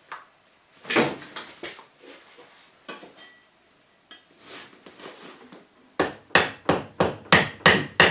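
Hammer blows while working a cracked, bonded car windscreen free: a loud knock about a second in and a few scattered smaller knocks, then from about six seconds in a quick, even run of strikes, about three a second.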